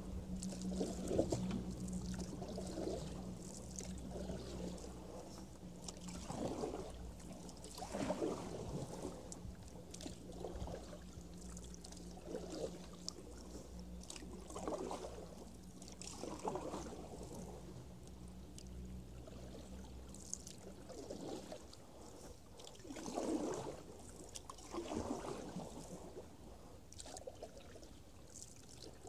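Canoe paddle strokes in floodwater: a swish and gurgle of water every couple of seconds, over a steady low hum that stops about two-thirds of the way through.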